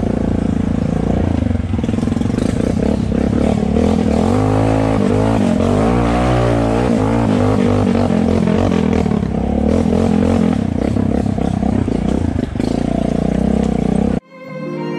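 ATV engine running under way, its pitch rising and falling as it revs up and down. It cuts off suddenly about a second before the end, and music takes over.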